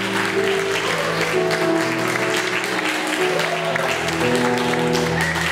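Small jazz band, piano and double bass, playing a slow introduction of held chords, with audience applause over it.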